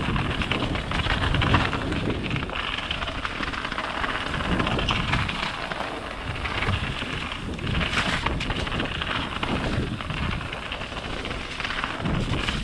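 Wind rushing over the microphone of a rider's camera and the rumble of a mountain bike running fast over a rough trail, with irregular knocks and jolts.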